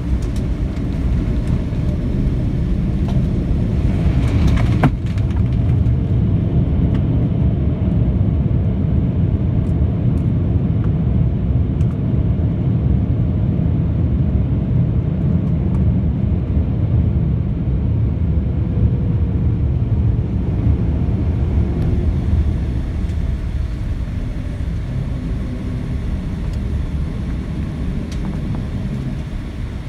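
Low, steady rumble of a Boeing 787-10 rolling out on the runway after landing, heard inside the cabin. It swells about four seconds in, with a single brief knock, then eases gradually as the jet slows.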